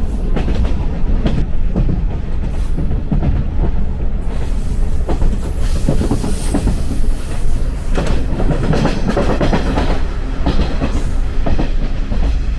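Running noise inside a 185 series electric limited express train: a steady rumble of the running gear with the wheels clattering over the rail joints.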